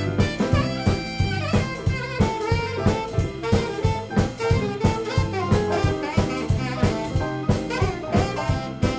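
Live jump blues band playing an instrumental passage of the tune, the drum kit keeping a steady beat under pitched lead and rhythm instruments.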